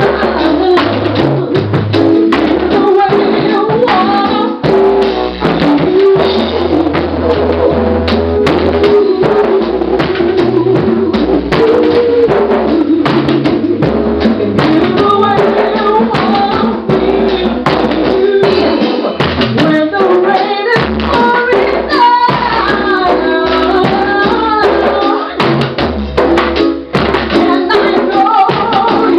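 Live band: a woman singing into a microphone over a drum kit with cymbals and a keyboard, with a bass line underneath.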